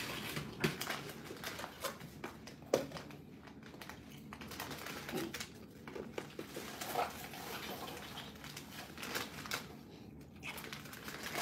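Plastic takeout bag rustling and crinkling in irregular, fairly quiet bursts as it is handled, with scattered small clicks.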